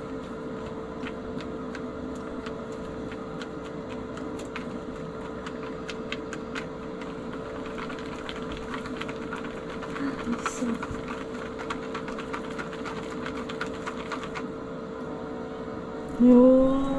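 Chopsticks stirring natto in a clear plastic pack: quick, irregular clicks and taps of the sticks against the plastic as the beans are whipped until sticky, over a steady low hum. A short voiced hum near the end.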